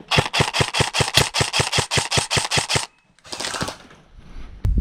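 Airsoft gun firing a fully automatic burst of about two and a half seconds, at roughly eight shots a second, followed by a brief rustle and a single knock near the end.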